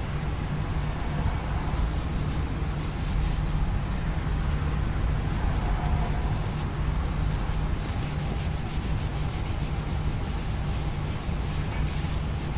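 Scrubbing a black-painted plate by hand with warm soapy water, a scratchy rubbing with many small clicks that grows busier in the second half, over a steady low hum.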